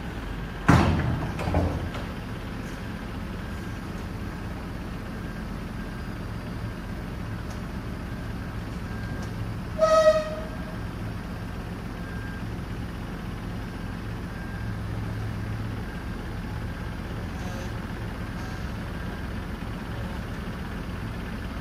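Mercedes Atego 1524 hooklift truck's diesel engine running steadily while its hook arm tilts a steel skip container off the bed. A loud metallic bang with a ringing decay comes just under a second in, a smaller knock follows about a second later, and a short high-pitched tone sounds about halfway through.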